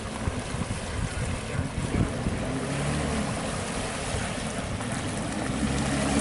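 A small outboard motor running as an aluminium boat moves through the water, with water splashing off the hull. A steady engine tone comes through more clearly after about two and a half seconds, over a rushing haze of water and wind.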